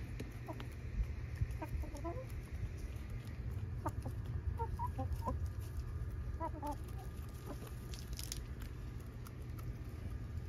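Backyard hens clucking in short, scattered calls while they feed on the ground, over a low steady rumble.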